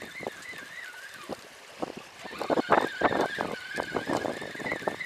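Fishing reel being cranked steadily to bring in a hooked fish, with water sloshing against the breakwater rocks and a run of short clicks in the second half.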